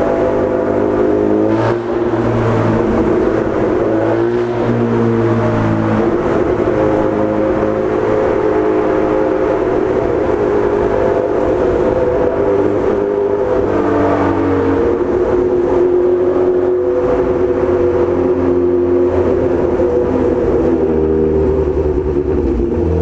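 Honda CB1000 motorcycle's inline-four engine running steadily while being ridden, its pitch shifting up and down a few times as the revs change.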